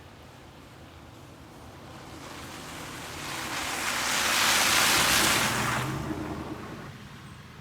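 A rushing noise swells over a few seconds, peaks about halfway through, then fades away.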